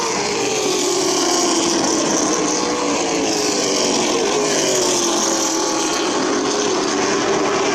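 Race car engines running at racing speed as stock cars lap a short oval, the engine pitch sliding down and then back up.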